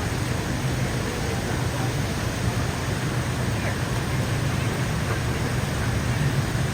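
Steady rushing of a waterfall pouring into a pool, with faint voices in the background.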